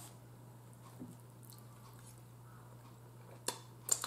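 Quiet eating sounds as a steamed chicken leg is pulled apart by fork and fingers and eaten, with two sharp clicks near the end over a low steady hum.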